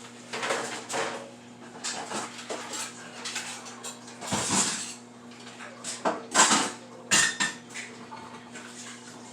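Dishes, pots and cutlery clattering and knocking as a kitchen is tidied and things are put away, in a run of separate clinks and bumps, the loudest about six and a half seconds in. A steady low hum runs underneath.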